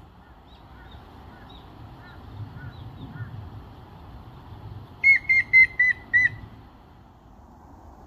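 Grey-headed woodpecker giving its whistled song: a run of five loud, evenly spaced whistled notes a little past the middle, after softer, fainter bird notes earlier on.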